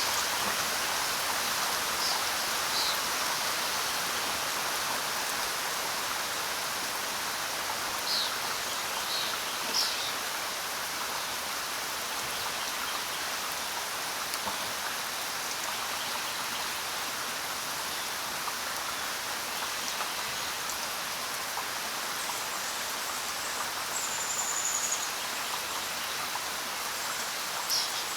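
Steady rain falling on the ground, an even hiss. A few brief, faint high-pitched chirps sound over it now and then.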